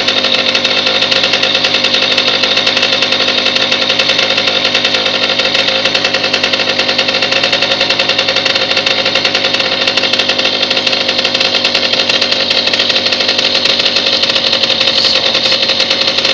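Stella moped's single-cylinder engine running steadily at an even speed, with a fast, regular beat.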